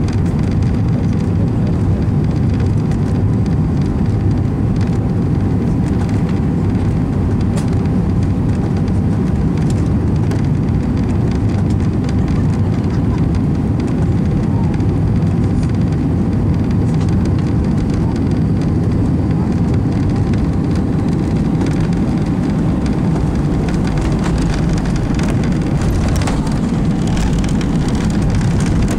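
Airliner cabin noise: the steady, loud rumble of the jet's engines and airflow heard from a passenger seat.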